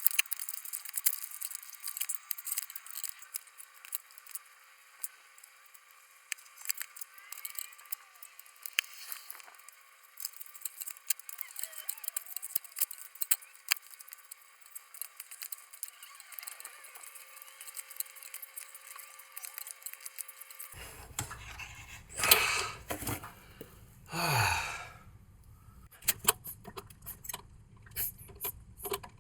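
Small sticky clicks and scrapes of hands and tools working grease into a CV joint. About three-quarters of the way through come two louder brief rushing sounds, the second falling in pitch, then scattered clicks.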